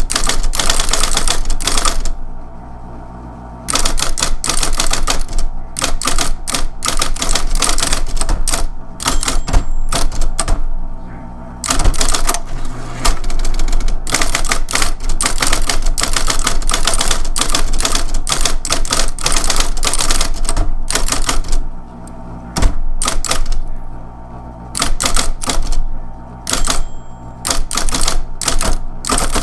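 Electric typewriter being typed on: fast runs of key strikes broken by brief pauses, over the steady hum of its running motor.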